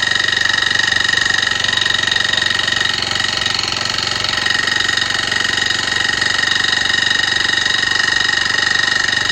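Small four-stroke Honda cultivator engine running steadily with a rapid scraping 'shari-shari' noise. The noise is unchanged with the valve clearance reset to 0.2 mm, and the owner suspects the piston or stuck piston rings after the engine seized.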